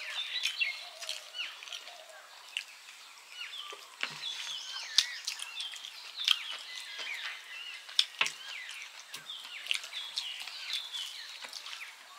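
Birds chirping, many short calls sliding up and down, with sharp clicks now and then from fingers working rice against steel plates.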